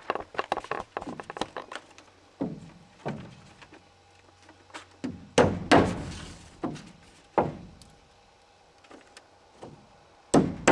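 Knocks and thuds on a wooden barn wall as a sheet of paper is set against the boards and nailed up with a claw hammer. The loudest blows come in a cluster about five to seven and a half seconds in, with another just before the end.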